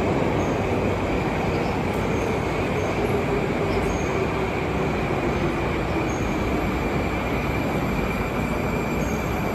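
Moscow Metro train running: a steady loud rumble and rushing noise with a high, steady whine, and a lower tone that falls slowly in the first couple of seconds.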